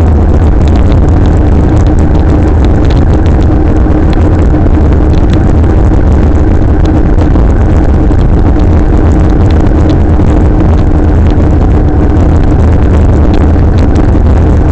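Electric scooter riding, heard from a camera mounted on the scooter: loud, steady rumble of wind and road vibration on the microphone, with a steady hum running underneath and faint scattered rattles.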